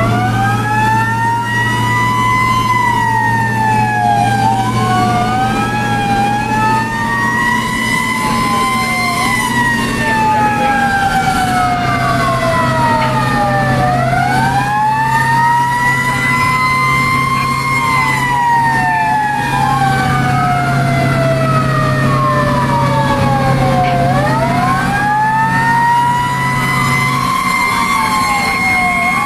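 Fire truck sirens wailing from inside the cab. Two wails overlap, each rising quickly and then falling slowly, again and again, over the steady drone of the truck's engine.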